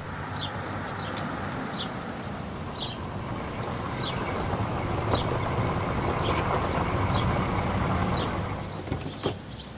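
A vehicle rolling along: a steady low rumble with a short, high squeak about once a second. It drops away near the end.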